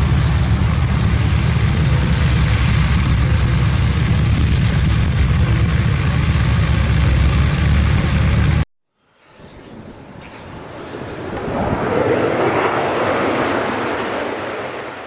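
A loud, steady low rumble that cuts off abruptly about eight and a half seconds in. After a moment of silence, an SF.260 light aircraft passes, its engine growing louder to a peak and then fading away.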